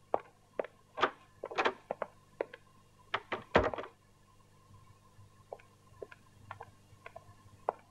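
Footsteps crossing a room and a door shutting with a thunk about three and a half seconds in, followed by faint light clicks and knocks.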